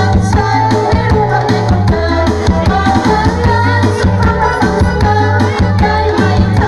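Music with a steady beat, drums and percussion over a bass line, with some singing.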